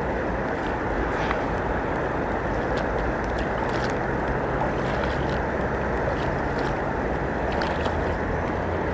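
Steady rushing noise of wind buffeting the microphone over the flow of the river shallows, with a fluctuating low rumble and faint light ticks now and then.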